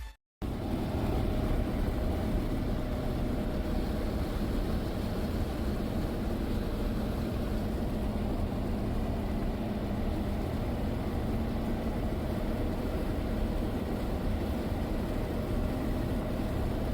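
Steady engine and road noise of a vehicle driving, with a faint even hum.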